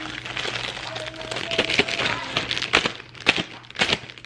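Plastic zip-top bag crinkling and rustling as a ball of play dough is pushed into it and the bag is sealed, with several sharper crackles in the second half.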